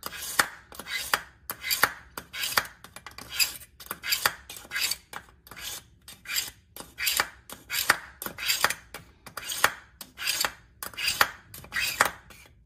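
A kitchen knife is pulled again and again through the fine ceramic slot of a KitchenIQ Edge Grip 2-stage knife sharpener. Each pull gives a short metallic scrape, about two pulls a second. This is the fine stage that hones and polishes the edge.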